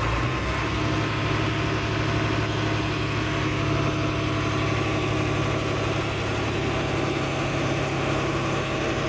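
Diesel engine of a heavy farm vehicle hauling a manure spreader, running steadily at low speed, heard from inside its cab.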